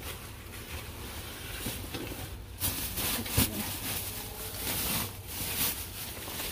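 Rustling and rubbing as discarded goods are rummaged through and moved about in a dumpster, with a few louder rustles partway through.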